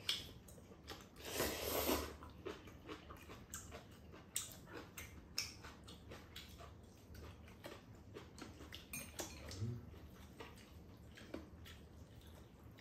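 Eating at a table: noodles slurped once about a second in, followed by soft chewing and scattered light clicks of metal chopsticks against bowls.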